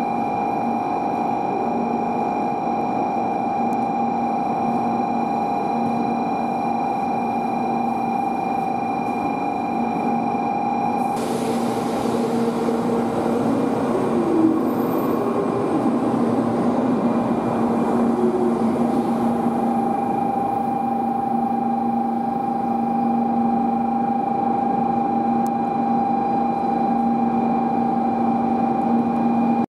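Train running on the rails: a steady rumble with several held whining tones. About eleven seconds in, a rushing hiss joins it.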